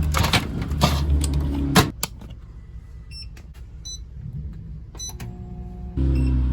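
A loud low rumble cuts off abruptly about two seconds in. A few short electronic beeps and a brief steady tone follow, and the low rumble returns near the end.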